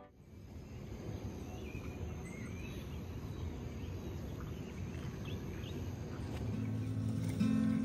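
Outdoor forest ambience: a low steady rumble of background noise with a few faint bird chirps. Guitar music comes back in near the end.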